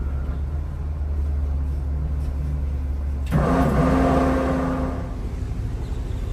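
A yacht's bow thruster runs in one burst of about a second and a half, starting suddenly about three seconds in: a whine over a rushing hiss, over the low steady hum of the idling engines.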